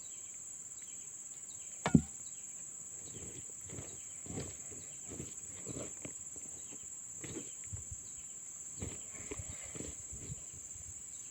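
Close-mic eating sounds: irregular chewing and smacking while eating a fish head, with one sharp click about two seconds in.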